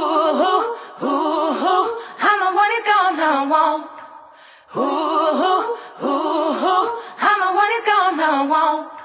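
Unaccompanied female singing, the a cappella opening of a song, with no bass or drums. It comes as two matching groups of sung phrases, with a short pause about four seconds in.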